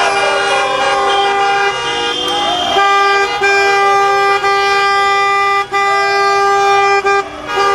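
Car horns honking in long, steady blasts, several sounding together, with short breaks about three and a half seconds in, near six seconds and just after seven: celebratory honking in a street full of cars.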